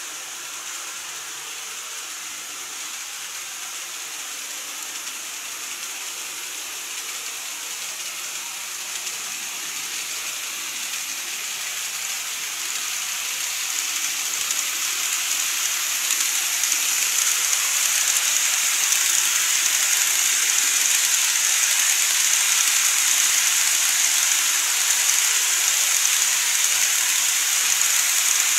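KATO N-scale model train running on the track: a steady rushing hiss of wheels on rails and the motor. It grows louder as the train approaches over the first half, then holds steady as it passes close.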